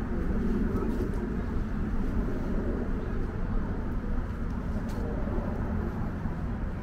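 Steady low rumble of road traffic, with a car close by.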